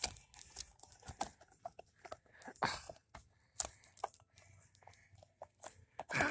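Irregular clicks, taps and rustles of a toy and its packaging being handled, with a louder rustle near the end.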